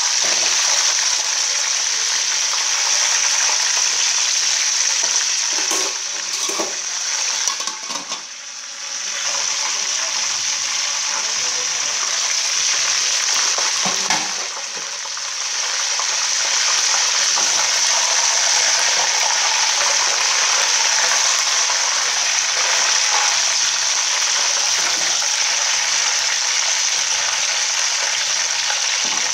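Whole chicken frying in hot oil and its own juices in a large aluminium pot: a steady, loud sizzle that drops briefly twice, about eight and fifteen seconds in, with a few short knocks.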